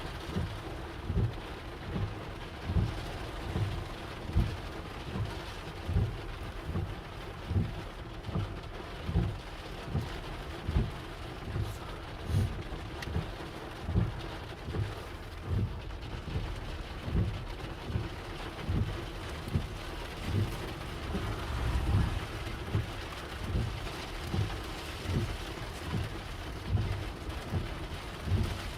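Heavy rain drumming on a car as it drives through a thunderstorm, heard from inside the cabin. A regular low thump comes a bit more than once a second, the beat of the windshield wipers.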